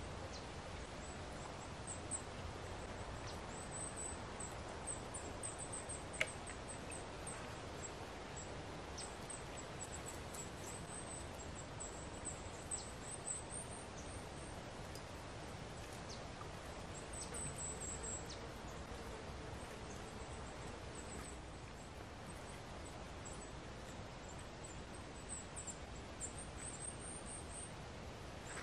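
Quiet forest ambience: a faint steady outdoor hiss with thin, very high chirps from a small bird or insect repeating throughout, a few soft clicks, and a faint low drone for a few seconds past the middle.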